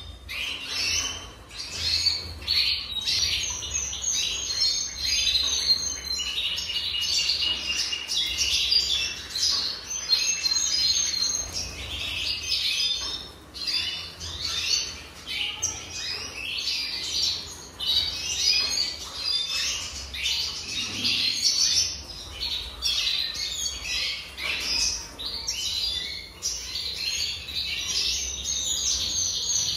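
Red siskins chirping and twittering in a cage: an unbroken run of quick high chirps and song phrases, with a steadier trill near the end.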